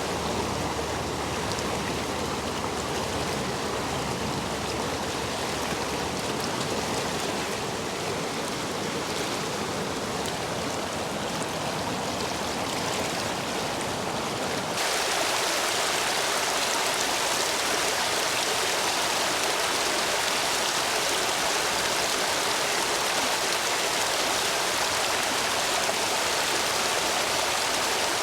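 Stream water running high after heavy rain, rushing over and between stepping stones in a steady rush. About halfway through it changes abruptly to a brighter, slightly louder rush with less low rumble.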